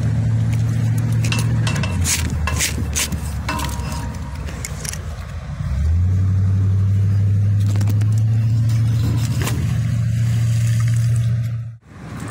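Road traffic: a vehicle engine's low, steady drone, loudest in the second half, with light clinks and scrapes of small rusty metal pieces on the magnet against the concrete in the first few seconds. Everything cuts out abruptly near the end.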